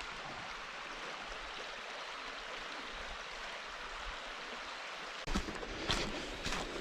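Creek water flowing as a steady, even rush. About five seconds in, irregular knocks and rustling join in.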